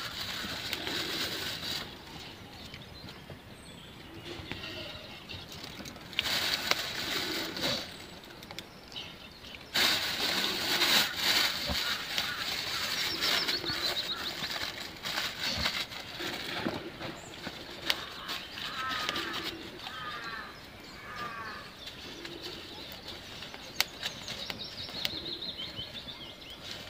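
Bursts of rustling noise with scattered sharp clicks, loudest about ten seconds in, and a bird giving a quick run of repeated short chirps about two-thirds of the way through.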